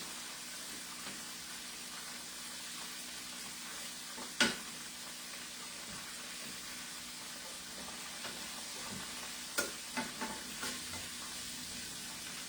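Chicken pieces frying in hot oil, a steady sizzle. A sharp clack about four seconds in and a few lighter clacks near the end, a utensil knocking against the pan as the pieces are turned.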